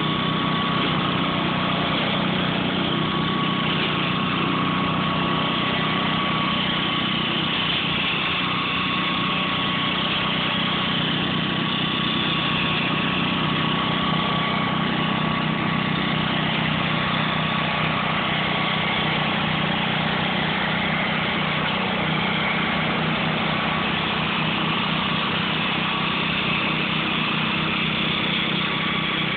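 1966 Gravely walk-behind tractor with a front rotary mower deck, its engine running steadily while it mows through leaf litter and brush, with a steady high whine over the engine note.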